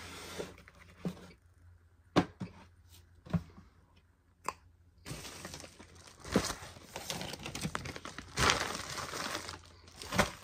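Cornstarch being crunched while chewed: a few sharp clicks in the first half, then dense crackling crunches over the second half.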